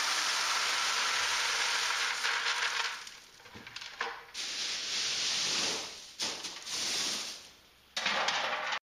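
Expanded shale stones pouring from a plastic bucket into a grow bed, a steady rush for about three seconds that then trails off. Several shorter rushes follow as the stones are spread by hand.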